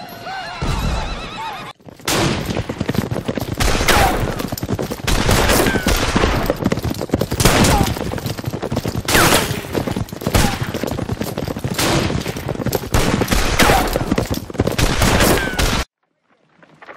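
Horseback chase and shootout sound effect: horses galloping and whinnying amid rapid, repeated gunshots, for about fourteen seconds before cutting off suddenly. It is preceded by the brief tail of a battle-sounds effect.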